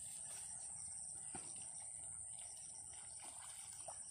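Faint outdoor ambience: a steady high-pitched insect drone, with a few faint ticks.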